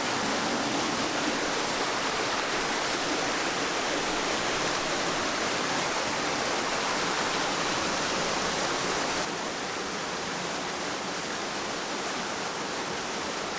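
Steady rushing water from a stream or waterfall, an even hiss-like rush that drops a little in level suddenly about nine seconds in.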